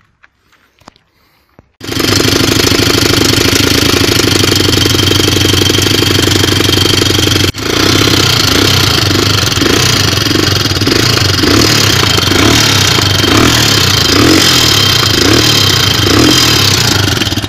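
A 169FMM single-cylinder four-stroke motorcycle engine starts up about two seconds in and runs loudly with a rapid, even knock. The engine has lost almost all compression and will not pull, and the knock comes from a failed valve rocker arm whose roller bearing has broken apart.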